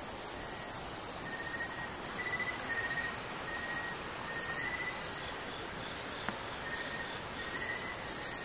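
Night insects, crickets among them, chirring steadily, with short faint high chirps recurring now and then over a steady rushing hiss.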